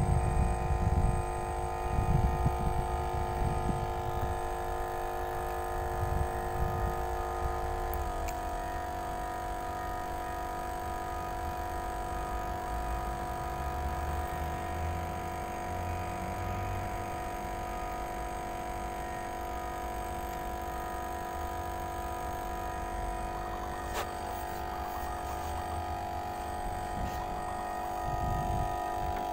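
A steady hum of several held tones that shifts suddenly to a new pitch about eight seconds in, over a low uneven rumble that is strongest in the first few seconds.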